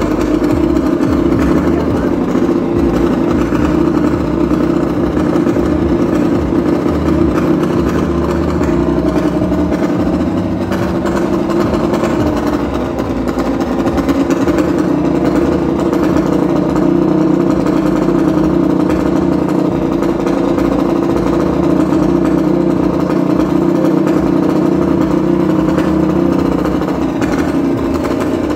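An engine running steadily, an even drone with no breaks or changes in speed.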